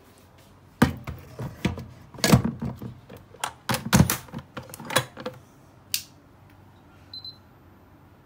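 Cuckoo CRP-R0680F electric pressure cooker being loaded and shut: a run of clunks and clicks as the inner pot goes in and the lid is closed and turned to lock, ending in one sharp click. A short electronic beep from the control panel follows near the end.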